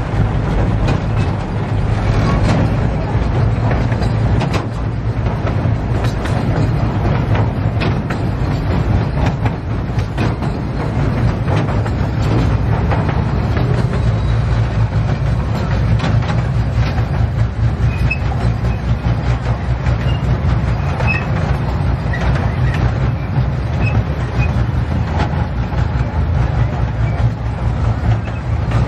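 Ride-on miniature passenger train running steadily along its track, heard from a car on board: a continuous low drone with wheels clicking lightly over the rails.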